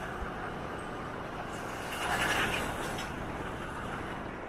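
Steady multi-lane highway traffic noise from trucks and cars, swelling louder about two seconds in as a heavy vehicle passes close by.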